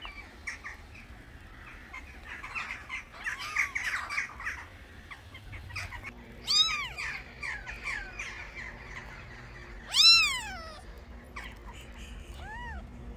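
Newborn kittens mewing: a few short, high-pitched mews, each rising then falling in pitch, the loudest about ten seconds in, with fainter squeaks in the first few seconds.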